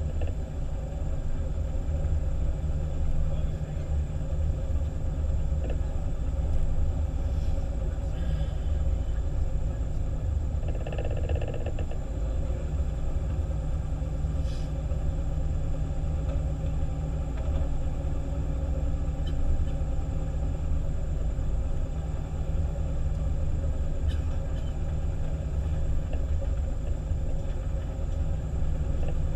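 Fire engine's diesel engine running as the truck drives on an icy road: a steady low rumble of engine and road noise, with a brief higher-pitched sound about eleven seconds in.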